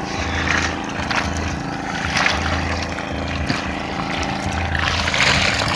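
A boat engine runs steadily with a low, pulsing hum, under splashing and flapping from fish crowded in a net being scooped out of the water, with a louder burst of splashing about five seconds in.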